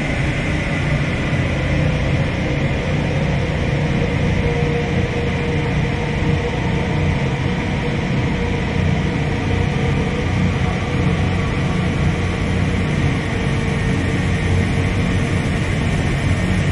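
Dark ambient drone music: a dense, steady wash of low rumble and noise with faint held tones above it and no beat.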